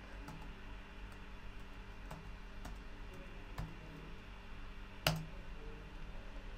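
Sparse computer keyboard keystrokes: a few separate key clicks as a filename is typed, then a louder keystroke about five seconds in as the command is entered.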